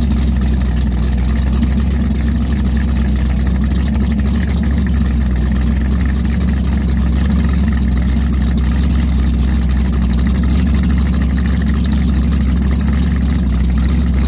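1980 Martini powerboat's 1000 hp inboard engine running steadily at idle, a deep, even engine sound with no revving.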